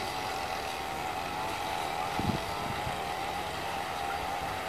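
Twin-engine jet airliner on final approach, its engines a distant steady whine that wavers slightly in pitch over a rushing noise. A brief low thump about two seconds in.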